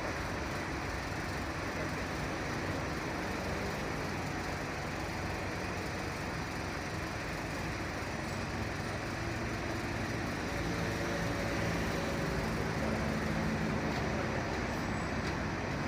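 Steady vehicle engine noise mixed with traffic noise, a low engine hum growing slightly louder after about ten seconds.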